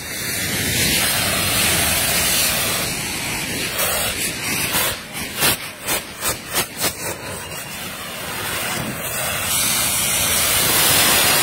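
Hand-held saites, cardboard tubes packed with gunpowder, spewing jets of sparks with a loud steady hiss. A rapid string of sharp pops comes about halfway through.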